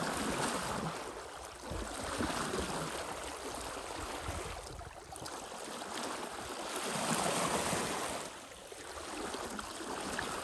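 Water rushing and splashing along the hull of a Huon pine sailing sloop under way, swelling and easing every couple of seconds.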